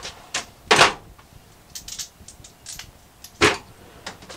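Rummaging in a metal tool-chest drawer: tools clanking and rattling against each other. There are a few sharp clanks, the loudest near the start and again about three and a half seconds in, with lighter clicks in between.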